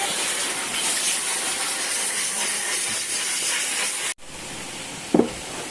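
A steady hiss that cuts off suddenly about four seconds in, followed by quieter background noise and a short goat bleat near the end.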